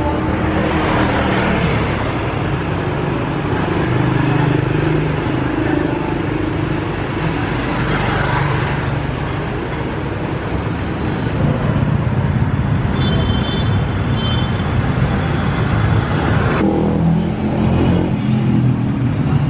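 City street traffic, motorbike engines running and passing. Near the end it switches to a closer, steadier engine sound.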